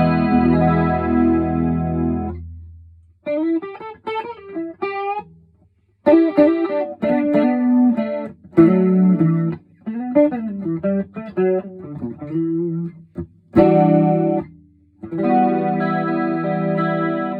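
Electric guitar (PRS SE Custom 24) played through a BOSS DC-2 Dimension C chorus set to mode 3, into a Vox AC30 amp. A held chord rings and fades over the first two seconds. Single-note melodic phrases follow, then a short chord and a final chord held near the end.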